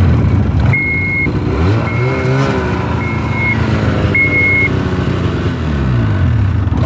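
Snowmobile engine running and revving a little, with its reverse warning beeper sounding four times, about once a second, as the sled is put in reverse.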